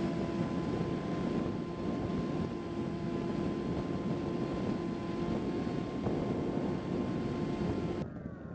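Bix3 RC plane's electric motor and propeller running at a steady throttle, a high whine over wind rushing past the onboard camera. Near the end the whine begins to drop in pitch.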